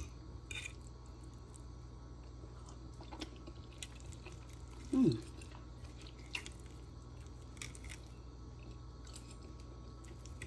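A person chewing a mouthful of chicken, with faint scattered clicks of a fork on the plate and a short falling "mm" of a voice about five seconds in, over a steady low hum.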